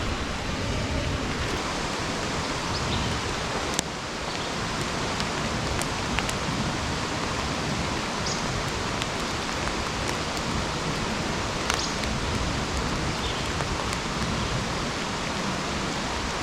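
Steady rushing hiss of outdoor water noise, with a few sharp ticks scattered through it.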